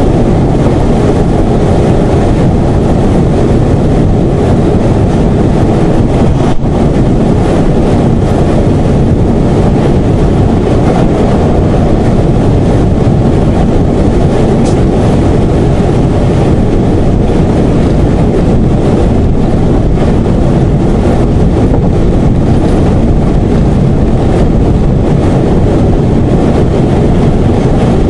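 Class 171 Turbostar diesel multiple unit running at speed, heard from the driver's cab: a loud, steady rumble of the diesel engine and the wheels on the rails, with one sharp click about six and a half seconds in.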